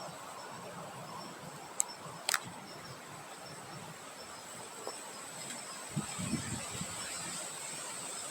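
Outdoor nature ambience: insects keep up a steady high-pitched drone, with faint repeated chirps about twice a second. Two sharp clicks come about two seconds in, and a brief low rumble follows around six seconds.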